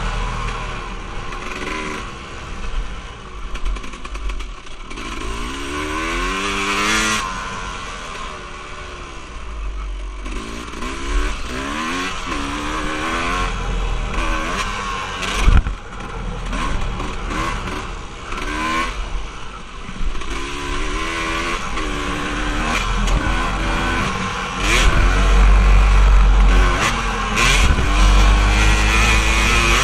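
An off-road vehicle engine revving up and down over and over as it is ridden, with a sharp knock about halfway through. Heavy low wind rumble on the microphone comes in near the end.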